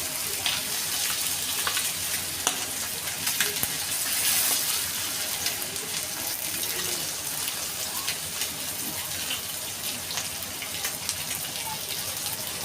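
Fish frying in hot oil in a pan: a steady sizzle with scattered small pops.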